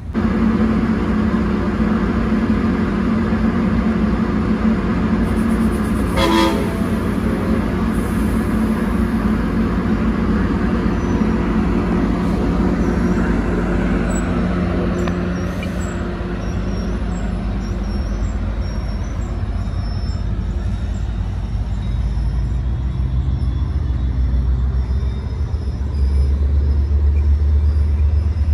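Trinity Railway Express commuter train running at a station platform: a steady low diesel engine rumble with rail noise. A single short horn toot sounds about six seconds in, and the rumble swells again near the end.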